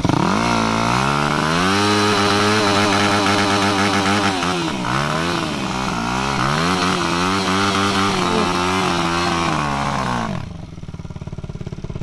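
Yamaha dirt bike engine revved hard again and again while the rear wheel spins in a muddy puddle, the revs climbing and dropping several times. Near the end the engine note falls away as the bike pulls out and rides off.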